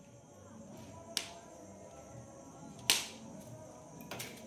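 Firecrackers bursting in a fire: two sharp cracks about a second and three quarters apart, the second the louder, then a fainter pop near the end.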